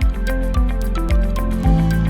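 Background music with a steady beat, about two low thumps a second, under short, stepping melody notes.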